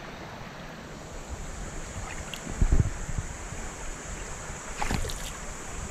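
Shallow creek water rushing close to the microphone, with a couple of low thumps, the loudest about two and a half seconds in and another near five seconds.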